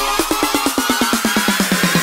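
Electronic dance music building up: drum hits quicken into a fast roll under a slowly rising synth sweep.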